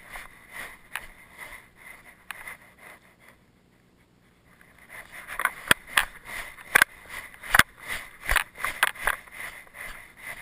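A camera mounted on a walking dog being jostled: irregular sharp knocks and scraping rattles from the mount, dropping away for about a second around four seconds in, then louder and more frequent.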